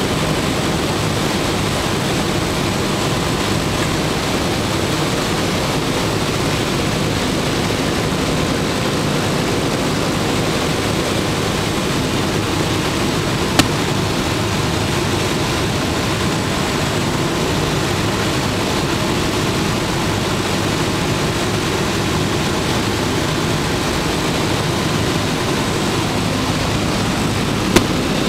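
A B-17's four Wright R-1820 Cyclone radial engines, heard from inside the flight deck, running at climb power just after takeoff as a loud, even drone. A brief click comes about halfway through and another near the end.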